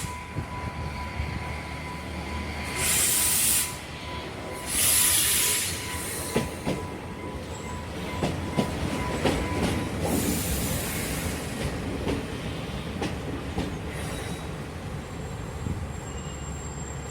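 Diesel train moving through a station with a steady low engine rumble and wheels knocking over rail joints. Loud high-pitched bursts of wheel squeal come about 3, 5 and 10 seconds in.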